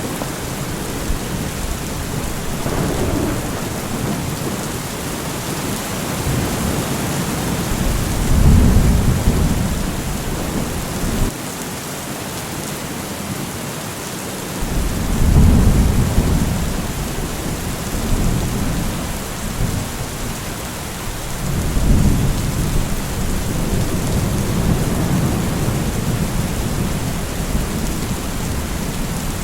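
Steady heavy rain with thunder rumbling low several times, swelling about eight seconds in, again around fifteen seconds and once more near twenty-two seconds.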